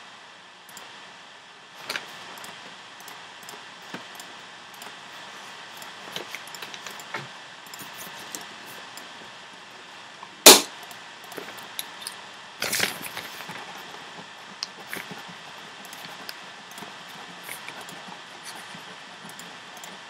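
Steady background hiss with scattered light clicks, a sharp loud knock about halfway through and a short rattling clatter about two seconds after it.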